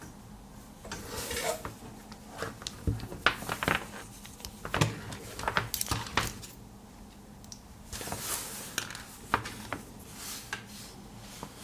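A sleeved USB cable being handled and flexed: irregular light clicks and taps from its plugs knocking, with soft rustling between them.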